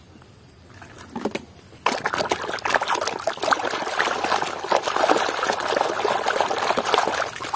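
A hand swishing and scrubbing a plastic toy vehicle in a tub of muddy, foamy water: continuous splashing and sloshing that starts about two seconds in and runs on steadily.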